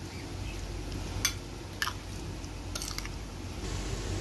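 Metal spoon stirring chunks of raw chicken in a spice-and-oil marinade in a glass bowl: wet squishing, with three sharp clinks of the spoon against the glass.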